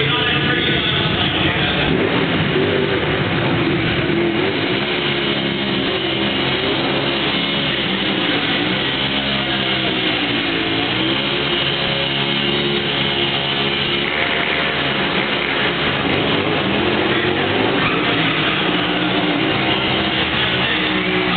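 Stunt motorcycle engine revving up and down as the bike is ridden through wheelies, heard over loud rock music with guitar.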